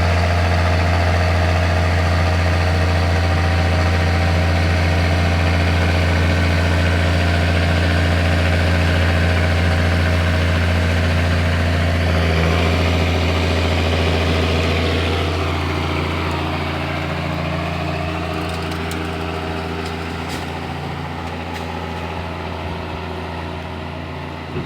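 John Deere 6620 tractor engine running hard at full throttle, straining on a soft, rain-soaked slope where the tractor cannot climb without the winch cable. The steady, loud engine note starts to change about halfway through and then fades gradually toward the end.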